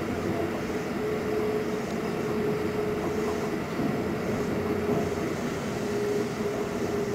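Keikyu 600 series electric commuter train running through a tunnel, heard from inside the passenger car: a steady rumble of wheels and running gear with a constant hum.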